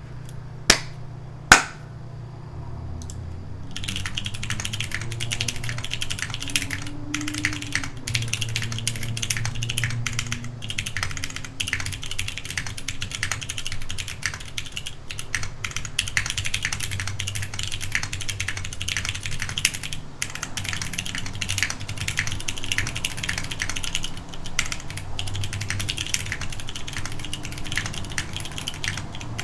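Home-built keyboard being typed on in a long, continuous run of fast key clicks. Two single loud clicks come within the first two seconds, and the steady typing starts about four seconds in. A low steady hum runs underneath.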